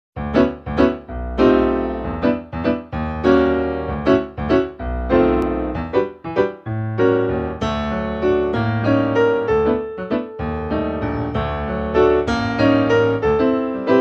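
Background piano music: notes and chords struck one after another, each ringing and fading.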